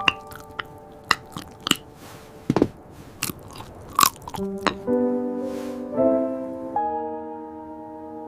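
Close-miked crunching and chewing of crisp food, a string of sharp crunches for about four seconds, over soft background music. The crunches stop and the music carries on with slow, sustained notes changing about once a second.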